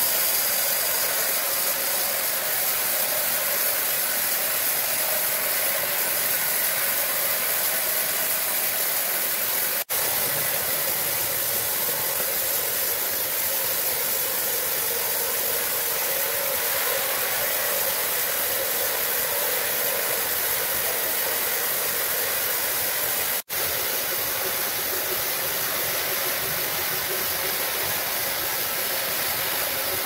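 Sawmill machinery running with a steady, even hissing noise, broken by two very brief dropouts.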